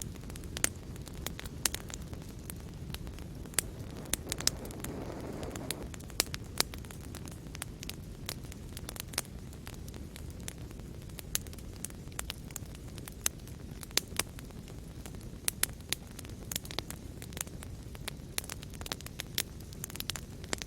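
Fire crackling in a fireplace: a steady low rumble of burning with many sharp, irregular pops and snaps, and a brief soft swell of flame noise about five seconds in.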